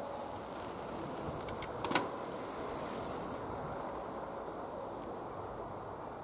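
Steady outdoor background noise with a single sharp click about two seconds in.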